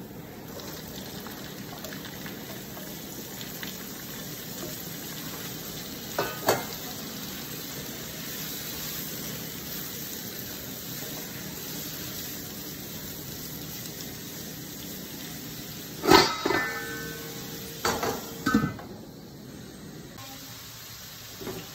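Diced carrots frying and sizzling in oil with garlic and onions in a wok, stirred with a spatula. Near the end, a few sharp metallic clanks with a short ring as the wok's metal lid is handled and set on.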